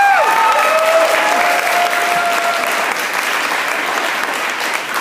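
Loud audience applause with cheering, starting with a couple of rising-and-falling shouts and one long held "woo" in the first few seconds.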